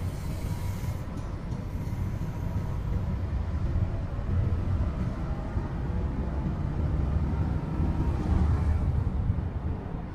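In-cabin running noise of a Toyota HiAce Premio van on the move: a steady low rumble of its diesel engine and tyres that swells a little a few times.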